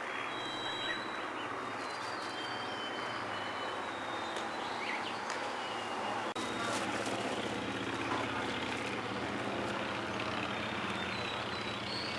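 Outdoor ambience: a vehicle engine idling steadily, its hum growing stronger about halfway through, with birds chirping now and then.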